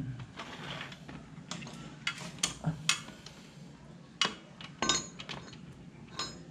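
Scattered light metallic clinks and taps, with a few sharp ones about two to three seconds in and a clink that rings briefly near five seconds in, from small metal parts and tools being handled under a scooter's engine at the drain plug.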